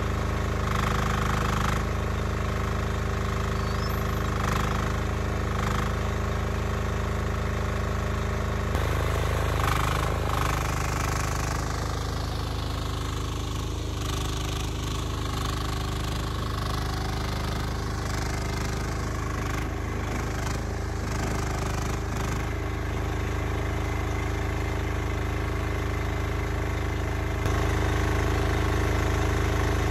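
HT08 mini excavator's small engine running steadily. Its sound changes about 9 seconds in and gets a little louder near the end.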